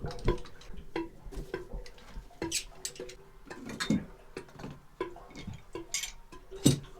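Irregular clicking, knocking and scraping of hand tools against pump-house pipe fittings, with a sharper knock near the end.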